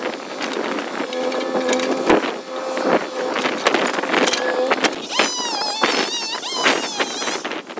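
Mini excavator engine running steadily while its bucket presses brush and branches down into a dump truck bed, with repeated sharp cracks of branches breaking under it. The engine note drops away about five seconds in and a wavering high-pitched squeal follows.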